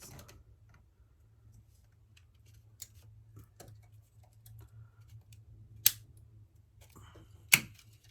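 Punch-down tool pressing wires into the slots of a Cat6 Ethernet jack: faint handling clicks, then two sharp snaps about a second and a half apart near the end.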